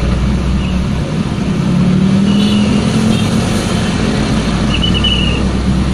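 Car engine and road noise heard from inside the cabin while driving, the engine note rising a little about two seconds in. Two brief high tones sound over it, about two and five seconds in.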